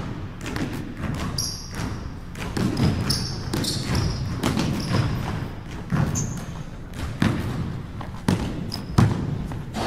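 Basketball being dribbled on a hardwood gym court: a run of bounces, with short high sneaker squeaks now and then.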